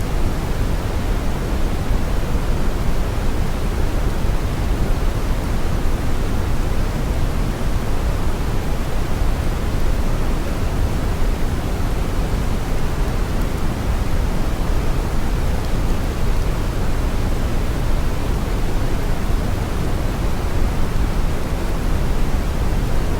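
Steady brown noise: an even, deep rushing hiss weighted heavily toward the low end, with no change in level.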